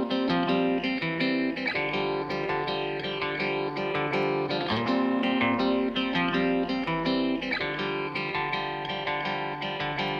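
Music carried by a plucked string instrument, quick picked notes over a steady rhythm.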